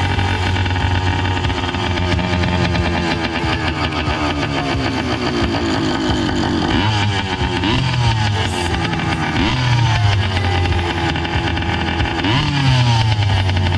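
Two-stroke motorized-bicycle kit engine running on the stand, idling steadily and then blipped on the throttle several times in the second half, its pitch rising and falling with each rev.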